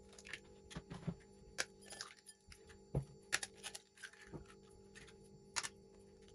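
Raw eggs cracked one after another against a glass mixing bowl: a string of sharp taps and shell cracks, with a faint steady hum underneath.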